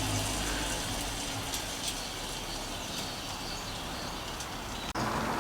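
Industry Nine Hydra rear freehub spinning freely on the bike's back wheel, a steady high buzz of its many pawl engagements that slowly fades as the wheel spins down. It cuts off abruptly near the end.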